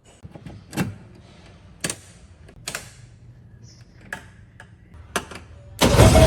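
A few sharp clicks and knocks, then near the end a small engine starts abruptly and keeps running loudly, most likely the homemade boat's motor.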